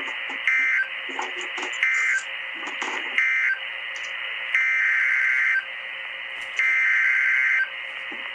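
Weather radio alert data tones through a radio speaker over steady hiss. Three short electronic bursts, evenly spaced, mark the end of one warning. Then come longer, one-second data bursts, the header of the next warning being broadcast.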